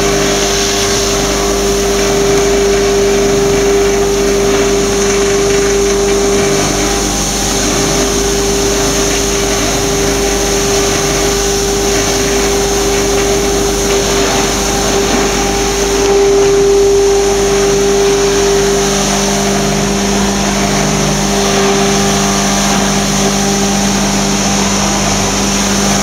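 Electric foam shredder running steadily, grinding sheets of expanded polystyrene (EPS) foam fed into its hopper: a constant motor hum over a continuous rough grinding noise. A lower hum grows stronger about two-thirds of the way in.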